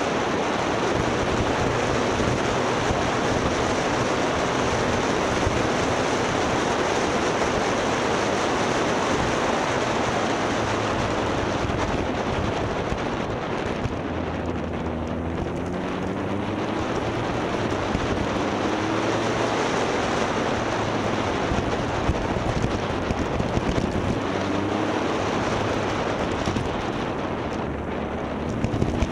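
Riding motorcycle: a steady rush of wind over the microphone, with the engine underneath rising in pitch as it accelerates, around the middle and again near the end.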